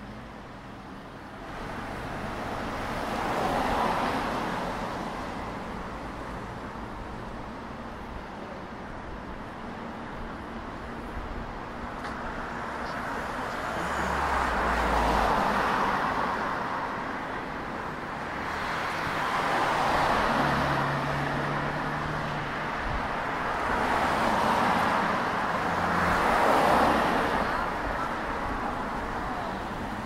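City road traffic: about five cars pass one after another on a multi-lane street, each tyre-and-engine rush swelling and fading over a steady background hum of traffic.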